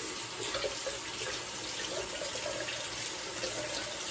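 Sink tap running steadily while a small spoon is rinsed under the stream.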